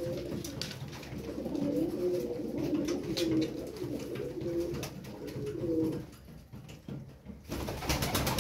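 Tumbler pigeons cooing: several low, wavering coos overlapping for about six seconds, then the cooing stops. A brief louder burst of noise comes near the end.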